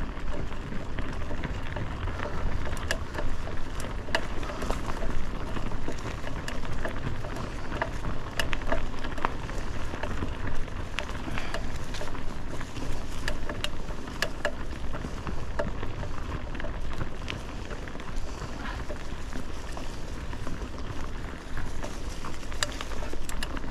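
Bicycle rolling along a dirt trail: tyres crackling over leaves and grit, with scattered sharp clicks and rattles, under a steady rumble of wind on the handlebar-mounted microphone.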